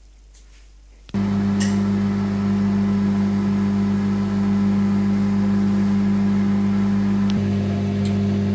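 Beaumatic microwave oven running at 850 watts: a steady electrical hum with fan noise that switches on abruptly about a second in.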